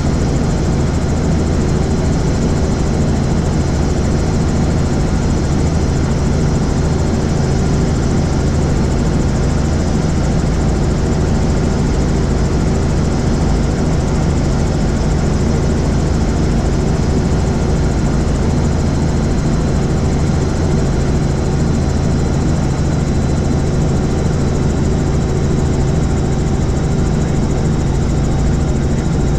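Helicopter in flight: the steady drone of its engine and rotor, unchanging throughout.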